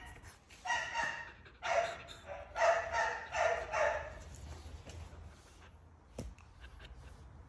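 Australian cattle dog (blue heeler) giving a run of high-pitched barks over the first four seconds, then falling quiet apart from a single knock about six seconds in.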